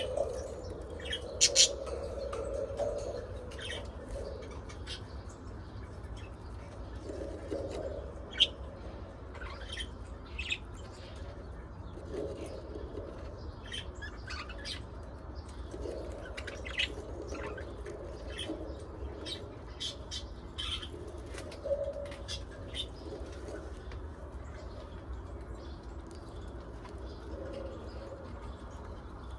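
Pet budgies and lovebirds chirping, with many short high calls and clicks scattered throughout and some lower warbling, over a steady low hum.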